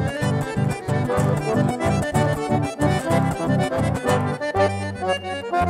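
Chamamé played live on a button accordion: a busy melody over a steady pulsing bass, which changes to longer held bass notes about four and a half seconds in.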